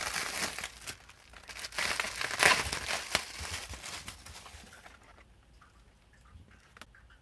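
Plastic packaging of memory modules crinkling and rustling as it is handled and opened, loudest about two and a half seconds in, then dying away to a few light clicks.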